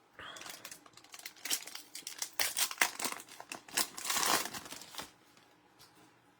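Plastic-foil trading card pack wrapper being torn open and crinkled by hand: a run of crackling rustles lasting about five seconds that stops abruptly.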